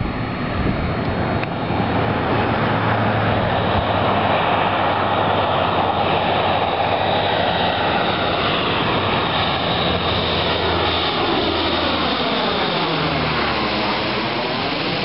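Four-engine turboprop C-130 Hercules flying low and passing directly overhead: a steady, loud engine and propeller drone that builds over the first few seconds. A phasing sweep near the end comes as the plane goes over.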